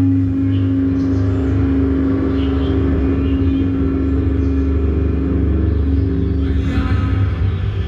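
Backing music for a Papuan creative dance played through loudspeakers: one long held low note over a deep steady drone, with some brighter sounds coming in near the end.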